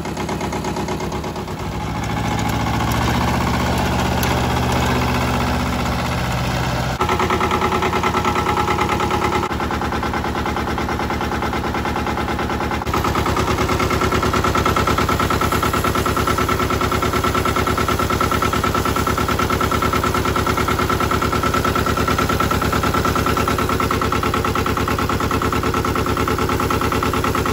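Mitsubishi MT372's diesel engine running steadily with a fast, even clatter. It gets louder in steps, about a quarter of the way in and again about halfway.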